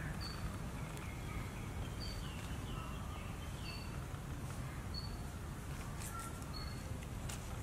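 Birds chirping, short high notes repeating about once a second with a few quick falling calls in between, over a steady low rumble.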